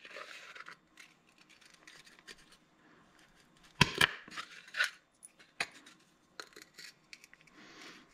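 Small clicks and metallic clinks of a steel bolt and washers being handled and fitted through a plywood spacer, with a few sharper knocks about four to five seconds in.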